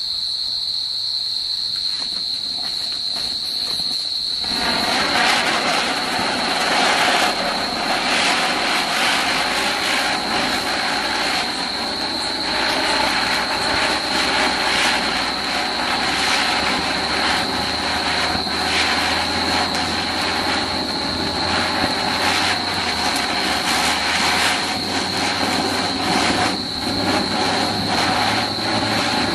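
Cock Brand ground chakkar (spinning ground firework) catching about four seconds in, then spinning with a steady hissing rush and frequent crackles. Crickets chirp steadily throughout.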